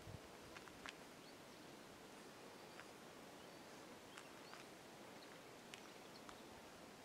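Near silence: faint outdoor ambience with scattered short, high ticks every second or two.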